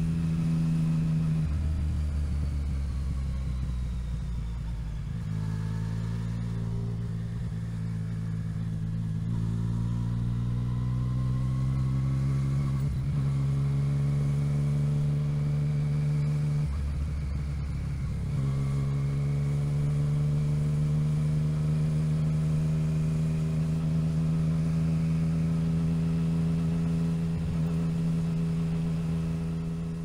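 Motorcycle engine running on the move, heard from the saddle. Its pitch climbs slowly and drops in steps several times, as at gear changes, then holds fairly steady; it begins to fade out near the end.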